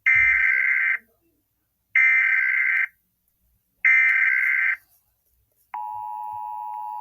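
Emergency Alert System SAME header: three loud, warbling bursts of data tones, each about a second long and about two seconds apart. Near the end comes the quieter, steady two-tone attention signal, which announces that a new warning is about to be read.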